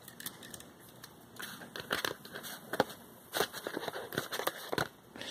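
Handling noise: irregular light taps and rustles as a pair of wire-framed glasses is moved onto a sheet of paper.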